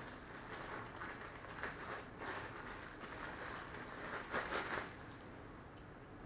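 Clear plastic bag crinkling and rustling in the hands as a power cord is unwrapped from it, with a louder flurry of crinkles about four and a half seconds in.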